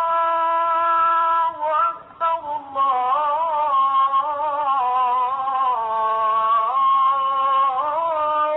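Old recording of a man's call to prayer (adhan), sung in long, high, wavering melismatic phrases with a short breath about two seconds in.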